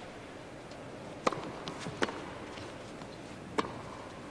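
A tennis ball knocked three times, sharply and briefly: twice about a second in, then once more near the end, the pattern of bounces before a serve and the serve itself. Under it runs the low steady hush of an indoor arena crowd.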